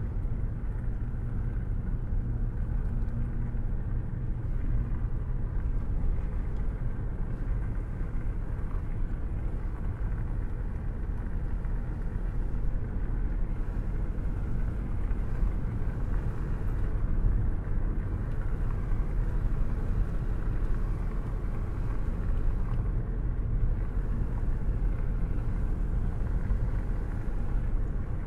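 Car driving at a steady cruising speed on the highway: a constant low rumble of tyres and engine, heard from inside the car.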